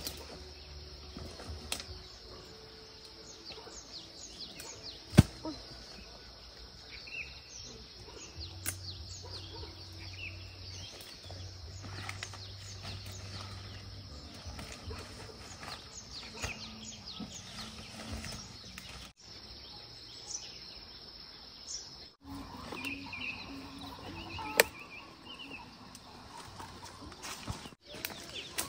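Outdoor ambience: birds chirp now and then over a steady high hiss, with footsteps and rustling in grass. Two sharp clicks stand out, about five seconds in and near the end.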